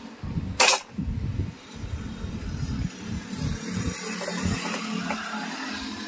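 Brief hiss of air, about half a second in, as the air-line chuck comes off the valve of a freshly inflated tubeless motorcycle tyre. A low engine rumble runs underneath.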